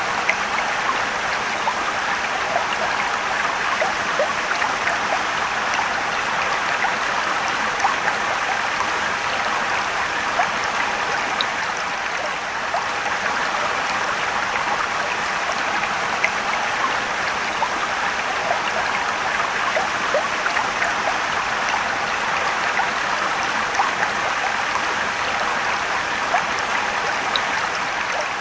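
Mountain stream rushing and trickling over rocks: a steady wash of water with many small splashes and droplets.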